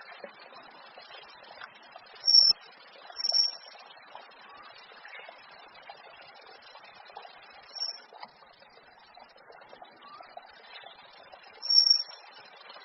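Birdsong: four short, loud, high-pitched whistled notes spaced irregularly over a steady background of fainter bird chatter.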